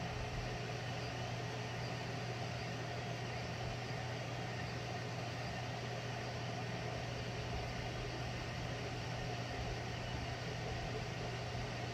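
Ortur Laser Master 2 diode laser engraver running an engraving job: a steady hum and whir from its laser module's cooling fan and stepper motors.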